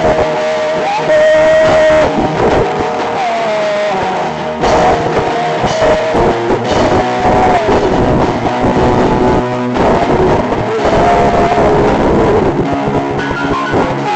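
Live band music led by electric guitar, with bass and a drum beat under a melody line that bends in pitch.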